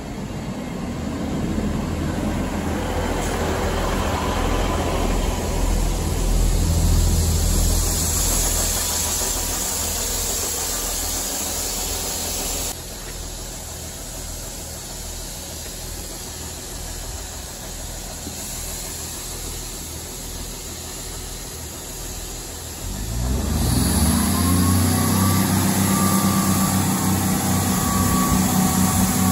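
Class 158 diesel multiple unit pulling into the platform with its diesel engines running and a rumbling hiss that builds over the first few seconds. About 13 s in the sound cuts abruptly to the unit standing with its engines idling, and about 23 s in the engines open up with a rising note as it starts to pull away.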